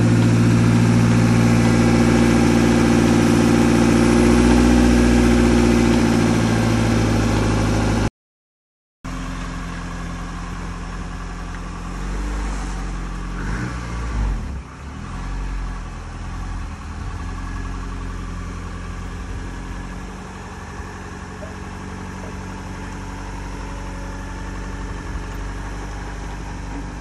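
Toyota AE86's twin-cam four-cylinder engine running steadily after its rebuild, loud and close at first. After a second-long gap it idles more quietly, with a few brief rises in revs.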